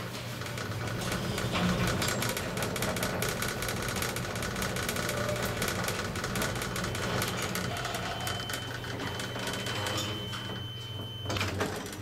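Kone-modernized high-rise elevator descending at speed: a steady drive hum with continuous rattling from the moving car, and a faint high whine added about halfway through. Near the end the hum cuts off as the car stops, followed by a clatter as the doors open.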